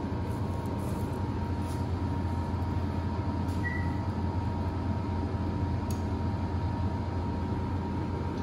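Steady low hum and rumble of running kitchen machinery, with a thin high whine held over it.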